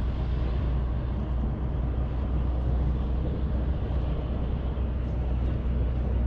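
Steady low rumble and hiss of wind buffeting the camera microphone, even throughout with no distinct knocks or clicks.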